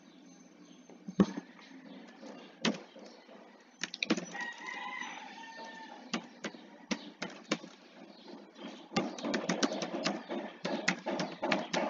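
Computer keyboard being typed on: a few scattered key clicks, then a rapid run of clicks from about nine seconds in. About four seconds in, a rooster crows once, lasting about two seconds.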